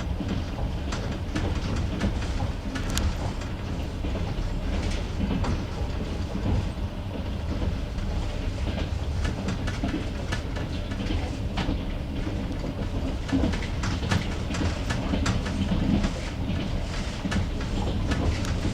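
Passenger-train wheels clattering over rail joints: irregular clicks over the steady low rumble of a moving carriage, heard from inside the coach at the window.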